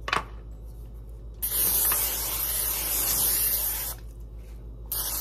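A short click, then an aerosol can of nonstick cooking spray hissing in one long spray of about two and a half seconds onto a baking pan, with a second short burst near the end.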